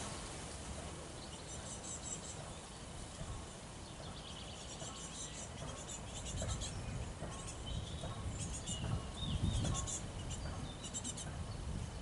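Small songbirds calling and singing in short, high, rapid phrases, repeated many times. Under them a low rumble swells a couple of times.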